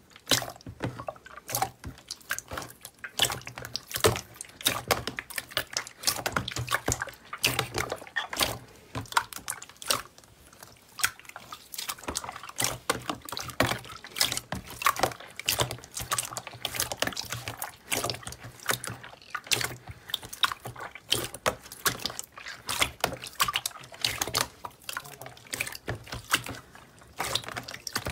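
Clear, water-like jelly slime being squeezed and pressed by hand: a dense, irregular run of wet squelches, pops and crackles.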